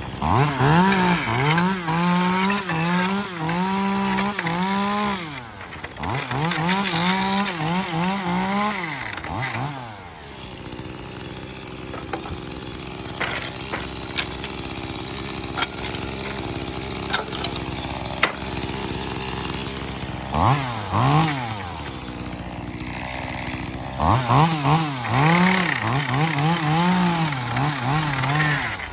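Echo CS-2511T top-handle chainsaw's small two-stroke engine revving at full throttle while cutting wood, its note wavering under load. There are two long bursts of about five and three seconds, then about ten seconds of idling with one brief rev, then a third cut of about four seconds near the end.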